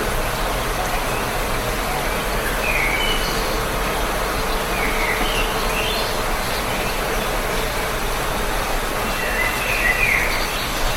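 Steady rain falling with a continuous hiss, and birds chirping over it in short, scattered calls, with a small cluster of chirps near the end.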